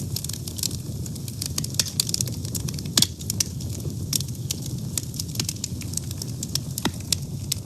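A wood fire burning: steady crackling and popping over a low rumble of flames, with one sharp loud pop about three seconds in.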